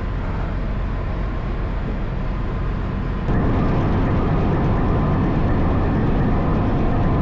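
Large slow-speed two-stroke crosshead marine main diesel engine running steadily on its test run after a piston overhaul. It is muffled at first, then much louder from about three seconds in, when heard beside the cylinders. Its running is taken as all good.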